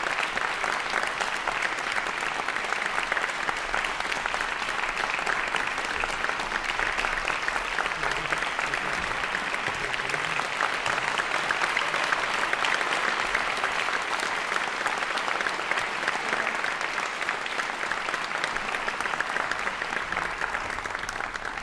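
Audience applauding: dense, steady clapping, a little louder around the middle.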